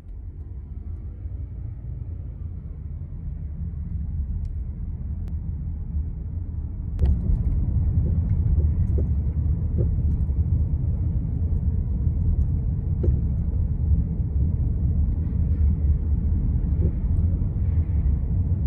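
Car driving with a steady low road rumble that grows louder about seven seconds in, with a few faint short knocks.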